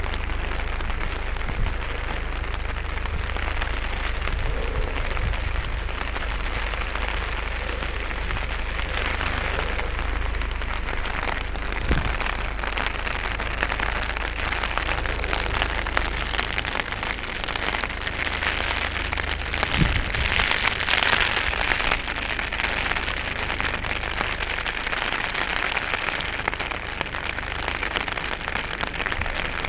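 Heavy rain falling steadily, an even hiss of rain on surfaces with a low rumble underneath.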